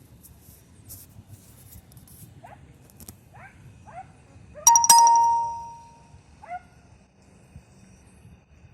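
Hunting dogs giving short, falling yelps several times. About halfway through there is a single loud bell-like metallic ring that dies away over about a second.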